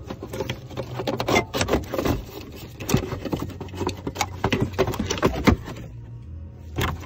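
A Cascadia's CPC module and its plastic mount being worked loose by hand without cutting the zip tie: a quick run of plastic clicks, knocks and rattles that eases off about a second before the end, over a low steady hum.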